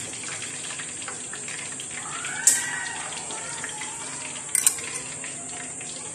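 Hot cooking oil sizzling steadily in a steel pot after the second fry of a pork leg. Metal tongs clank against the steel pot or strainer bowl once about two and a half seconds in, leaving a brief ring, and twice in quick succession just before the five-second mark.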